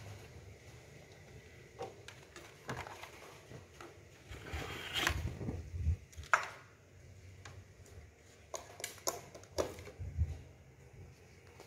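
Scattered light knocks and clicks as a blender's plastic lid and jar are handled and fitted together, with a short rustle a little before halfway and a sharper knock just after it. The blender motor is not running.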